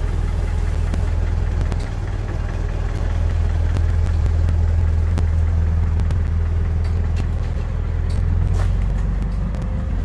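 A vehicle engine idling close by, a steady low hum that holds its level with slight swells.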